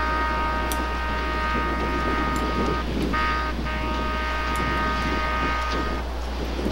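Passenger train's air horn sounding a chord of several notes: a long blast that ends about three seconds in, a short toot, then another long blast that cuts off about six seconds in. This is the long, short, long close of a grade-crossing warning.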